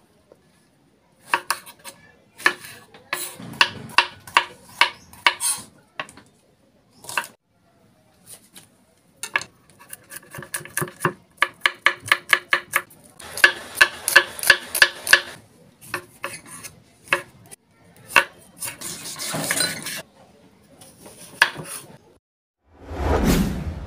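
Kitchen knife chopping vegetables on a wooden cutting board, in runs of quick sharp strokes about three to five a second with short pauses between. Near the end a falling whoosh comes in.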